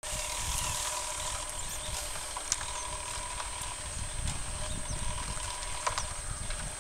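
Faint steady drone of a paramotor's engine flying at a distance, under wind rumbling on the microphone, with a few sharp clicks and short high chirps.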